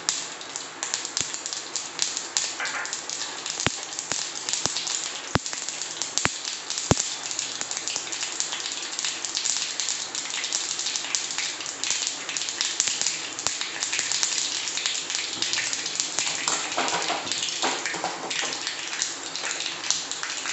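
Mustard seeds spluttering in hot coconut oil in an aluminium kadai: a dense, steady crackle with sharper single pops as the seeds burst, the sound of tempering.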